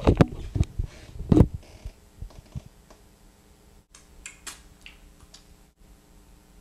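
A few sharp clicks and knocks in the first second and a half, then quieter wet smacking and sucking as fingers are licked, about four seconds in.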